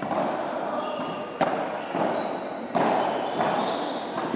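Crowd of spectators clapping and chattering, with one sharp knock about a second and a half in.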